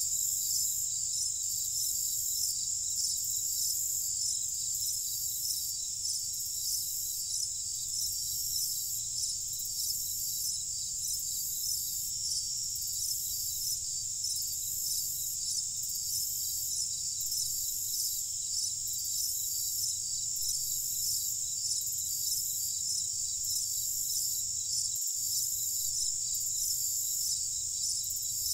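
A chorus of crickets chirping steadily, a high-pitched, evenly pulsing trill, over a faint low rumble.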